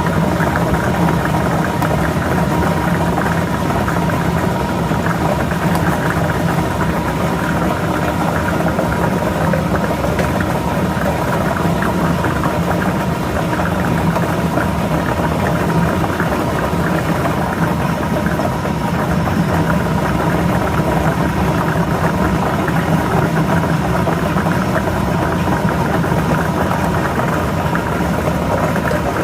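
Lottery ball-drawing machine's blower motor running steadily, with a constant hum.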